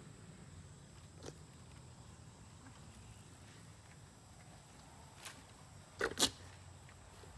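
A few faint taps, then two loud sharp knocks in quick succession about six seconds in, over a low steady background hum.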